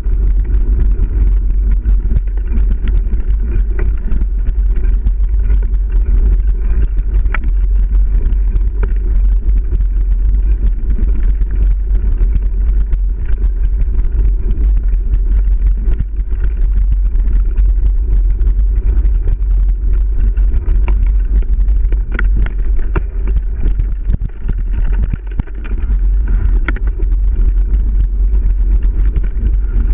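Mountain bike riding fast over a dirt singletrack, heard from a camera mounted on the rider or bike: a steady low rumble of tyres and wind on the mic, with frequent rattles and clicks as the bike goes over bumps.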